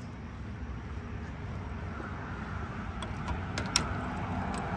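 A steady low outdoor rumble, with a few light metallic clicks and jingles from about three seconds in: keys being handled at the car's trunk lock.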